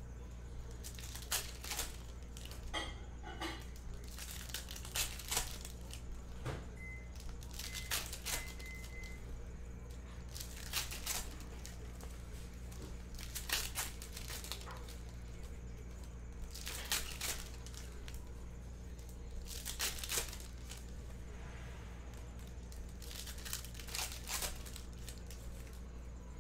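Foil trading-card packs being torn open and crinkled by hand, in short crackling bursts every second or two, over a steady low hum.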